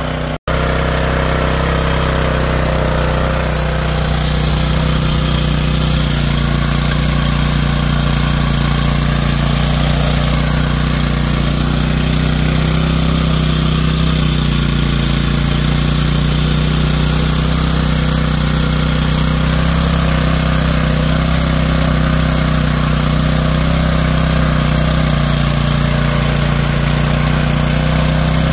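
Pubert Nano mini tiller's small engine running steadily under load as its tines churn through dry soil, with a momentary break in the sound about half a second in.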